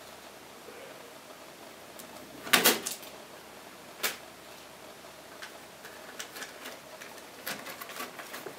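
Plastic mains plugs and cords being handled on a desk: a loud clatter about two and a half seconds in, a single click a little later, and scattered light clicks and knocks near the end.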